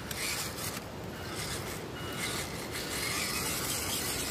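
Small electric RC crawler truck (WPL C14) running slowly over mud, its motor and gearbox giving a continuous buzzy, rasping whir mixed with scraping and rustling.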